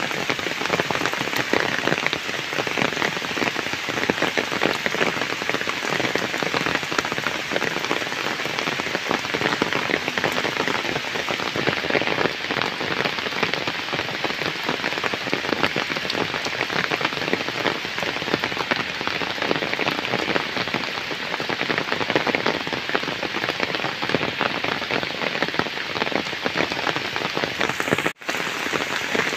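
Heavy rain falling steadily on waterlogged ground and puddles, a dense, even patter. The sound cuts out for an instant near the end.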